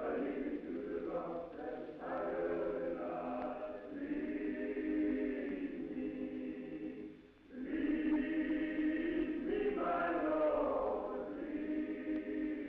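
Male choir singing a sustained, slow vocal piece in long phrases, with a short breath-break about seven seconds in, on a narrow-sounding old film soundtrack.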